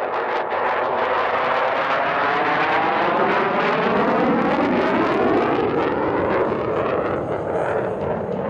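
F-16 Block 40 Fighting Falcon jet engine running loud in a low pass, a dense rushing roar with a sweeping, phasing whoosh that slides in pitch as the jet goes by.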